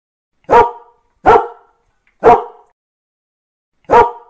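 A dog barking: three sharp single barks about a second apart, then a pause and a fourth bark near the end.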